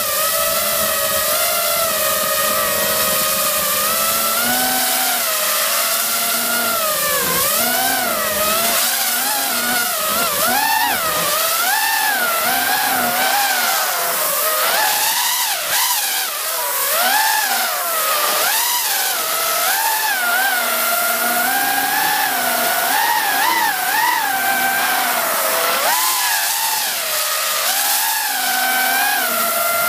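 FPV quadcopter's brushless motors and propellers whining, the pitch rising and falling constantly as the throttle changes in flight, over a steady hiss.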